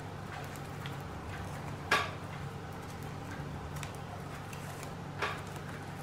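Wired ribbon rustling and crinkling as the loops of a bow are fluffed and arranged by hand. A sharper crinkle or tap comes about two seconds in and another about five seconds in, over a steady low hum.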